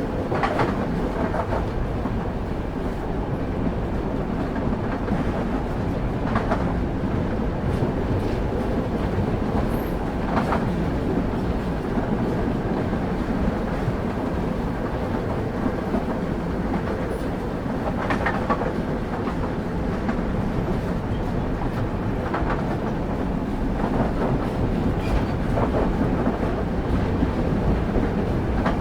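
Railway carriage wheels running on track: a steady low rumble, with the clickety-clack of the wheels passing over rail joints every few seconds.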